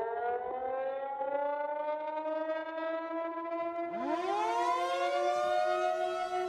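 Civil defense sirens winding up to a steady wail. A second siren starts about four seconds in and rises in pitch from low to join the first.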